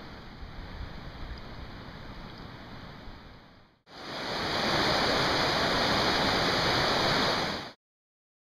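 Rushing mountain stream, a loud steady rush of white water. It swells in about four seconds in after a fainter, steady outdoor hiss and stops abruptly near the end, leaving silence.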